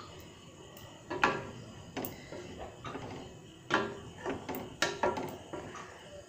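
A spatula stirring boiled eggs through a thick curry in a steel kadai, giving a handful of short knocks and scrapes against the pan, the strongest about a second in and again around four to five seconds in.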